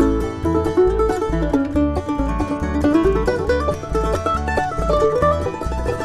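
Bluegrass band playing an instrumental break: plucked strings and a bass keep a steady beat under a lead melody that slides up and down in pitch.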